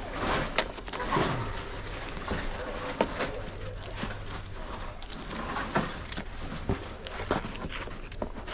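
A stack of trading cards being thumbed through and handled, giving scattered light clicks and taps of card edges over a steady low hum.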